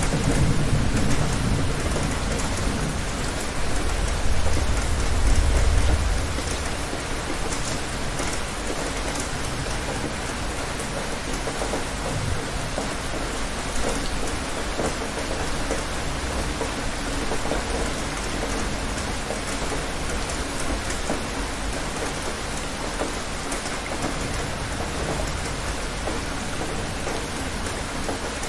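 Steady rain falling, with a low rumble of thunder that fades away about six seconds in.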